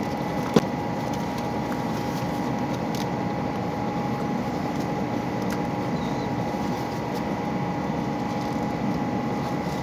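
Steady hum and hiss with a few constant tones, with one sharp click about half a second in.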